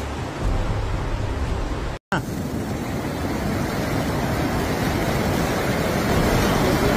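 Muddy floodwater rushing in a torrent down a street: a steady, dense wash of noise. The sound drops out for a moment about two seconds in, then the rushing goes on.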